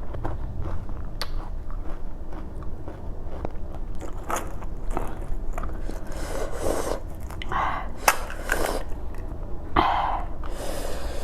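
Close-miked chewing and biting of food: crisp crunches with short clicks and wet mouth noises, louder bursts coming several times in the second half.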